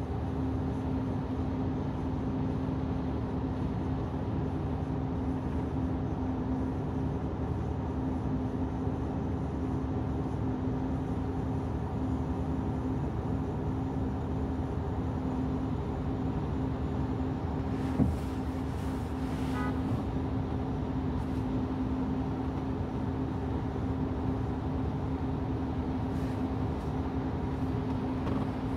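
A car driving through rain on wet city streets: steady low road and engine noise with a constant low drone. There is a single knock about 18 seconds in, then a brief short tone.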